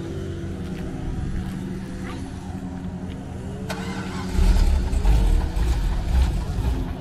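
A vehicle engine running steadily, with a heavy low rumble that comes in about four and a half seconds in and lasts about two seconds.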